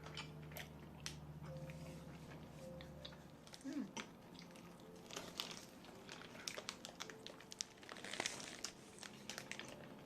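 Close-miked eating: many small crisp crackles and crunches from biting and chewing food, coming thicker after the first few seconds, over a faint steady hum early on.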